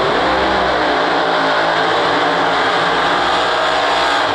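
Two no-prep drag cars, a black Chevy Nova and a red Camaro, doing side-by-side burnouts: loud V8 engines held at high revs while the rear tyres spin.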